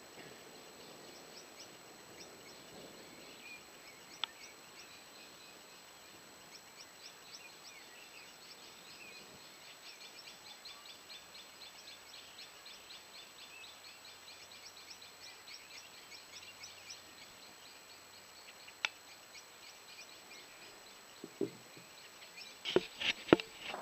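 Faint outdoor night ambience: a low hiss with a steady run of quick, high insect chirps, about four or five a second. A few sharp clicks and knocks come near the end.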